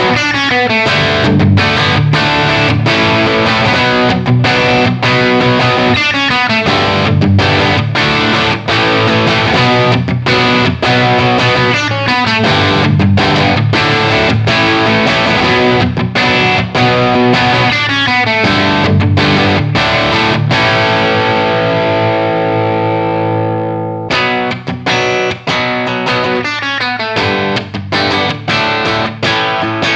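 Gibson Les Paul with PAF-style humbuckers played through a distorted amp, strumming chords and riffs. About 20 seconds in, a chord is left to ring and fade. Playing picks up again about 24 seconds in.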